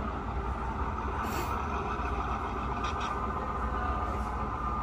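Model train running along the track: a steady hum and rumble from the passing model diesel locomotives and hopper cars, with a couple of brief clicks from the wheels and track.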